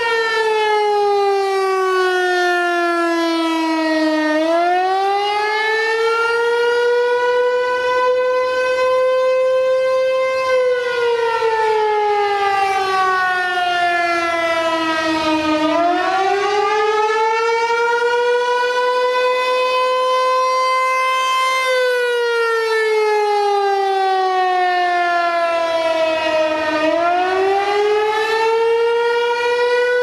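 Rotating outdoor tornado warning siren sounding a wail: one strong tone sliding slowly down, then climbing back up, over and over, each cycle about eleven seconds long.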